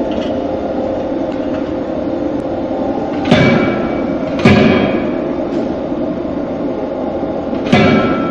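Anyang C92K-16 CNC fully hydraulic closed die forging hammer striking while forging a spanner in its die: two heavy blows about a second apart, then a third about three seconds later, each with a short metallic ring. A steady background din runs under the blows.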